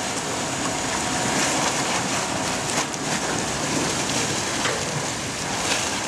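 Water splashing and churning as a helicopter underwater egress trainer cabin sinks into a pool and rolls over, water rushing in through its windows and doors.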